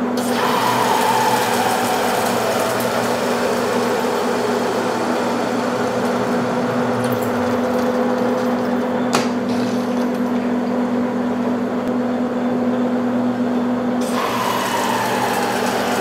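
Metal lathe running under a facing cut across a steel coupling blank, with a steady gear and motor hum and the hiss of the tool cutting. A whine falls in pitch over the first few seconds and again near the end. There is one sharp click about nine seconds in.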